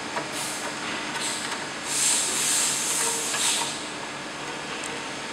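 WM210V mini lathe running at low spindle speed with a faint steady whine, while its headstock end gear cover is handled and pulled open, giving bursts of hissy rustling about half a second in and again from about two seconds in.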